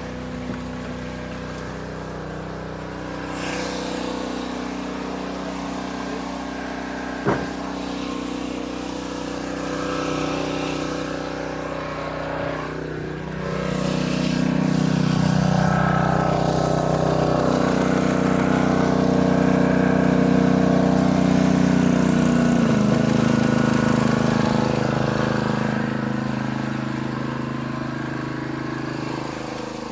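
Engine running steadily. It gets louder about halfway through and drops slightly in pitch later on, with one sharp click about a quarter of the way in.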